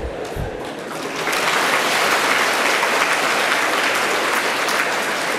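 A large audience applauding. The clapping builds about a second in and then holds steady.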